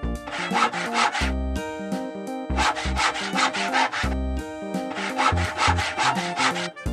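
Background music with a bass line, with three runs of quick rasping strokes, like wood being rubbed or sawed, laid over it.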